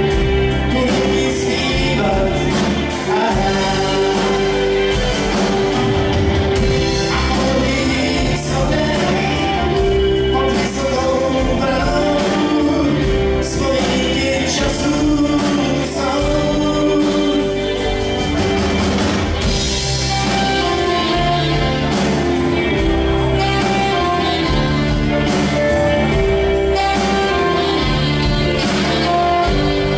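Live rock band playing a song: electric guitars, bass guitar and drums, loud and steady throughout.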